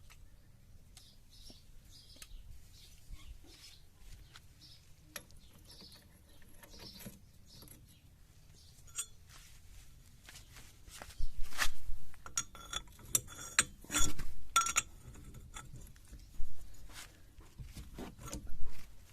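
Metal tools and parts clinking and clanking as a car's rear wheel and drum brake assembly are taken apart. There is light handling at first, then a run of loud clanks with a ringing metallic tone past the middle, and two more clanks near the end.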